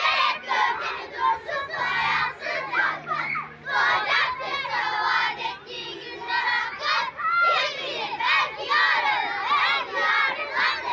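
A group of young children's voices, many at once, loud and overlapping.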